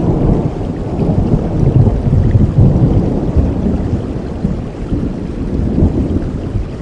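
Thunder rumbling over steady heavy rain. The rumble swells in the first few seconds and then slowly eases off.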